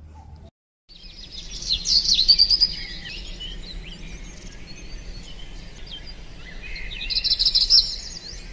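Small songbirds singing and chirping in a forest, several voices overlapping, with rapid high trills that are loudest about two seconds in and again near the end. The sound cuts out briefly just before the birdsong begins.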